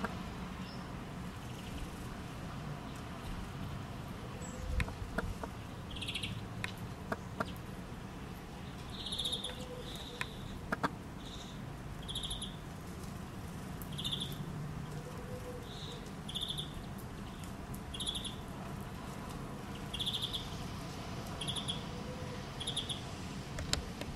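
Small songbirds giving short, single call notes, repeated every second or two, with a few sharp clicks among them.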